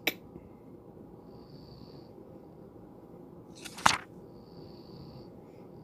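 Low steady hiss of a home voice recording between spoken words, with one short sharp noise about four seconds in.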